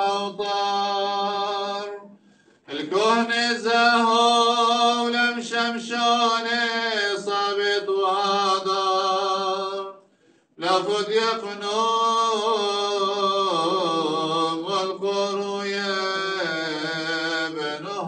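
Male liturgical chant of a Syriac Orthodox service, sung in long held notes, breaking off briefly twice, about two seconds in and about ten seconds in.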